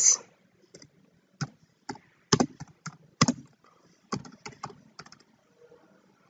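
Typing on a computer keyboard: a run of separate key clicks at an uneven pace.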